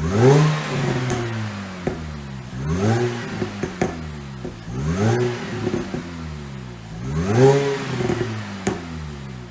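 2006 Mini Cooper S JCW's supercharged four-cylinder engine revved through its exhaust four times, each throttle blip rising and falling in pitch.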